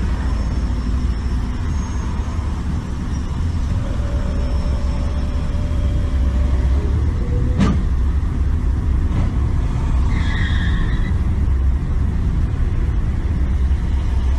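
Steady low engine and road rumble from a moving car, heard from inside, with a single sharp click about halfway through and a brief high-pitched tone a couple of seconds later.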